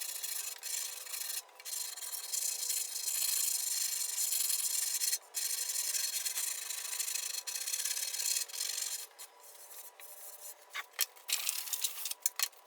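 Coarse abrasive scraping of cured body filler on a steel bus bumper as it is worked down to shape. The scraping runs in long, scratchy stretches with brief breaks, then turns into short separate strokes near the end.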